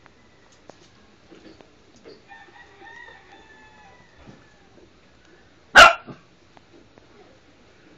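A rooster crowing faintly, one call about two seconds long. A little past halfway a single very loud, sharp burst cuts in, likely from the dog or cat in the scuffle, with a smaller one just after.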